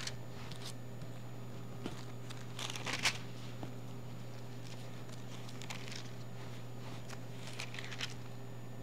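Bible pages being turned at a pulpit: a few short paper rustles, the loudest about three seconds in, over a steady low hum.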